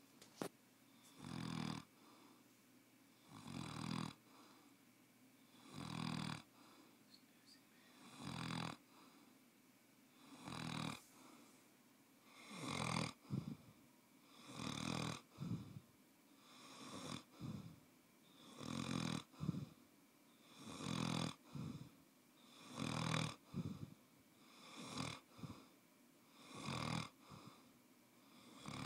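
A sleeping Newfoundland dog snoring, one snore about every two seconds.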